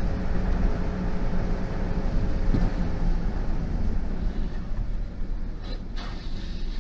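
Steady road and engine rumble of a car at highway speed, heard from inside the cabin, with a couple of faint knocks near the end.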